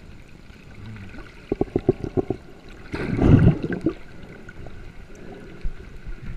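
Water sloshing and gurgling, with a quick run of gurgles about a second and a half in and a louder rush of water about three seconds in.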